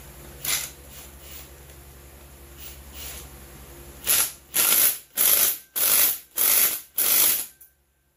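Ratchet clicking through six quick strokes about half a second apart in the second half, then stopping.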